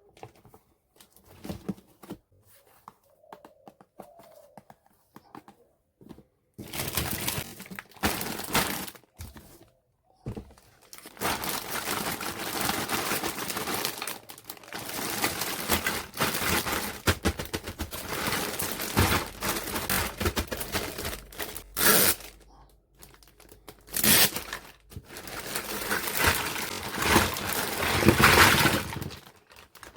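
Plastic packaging crinkling and rustling in long stretches as toy pieces are unwrapped, after a few seconds of small clicks and taps.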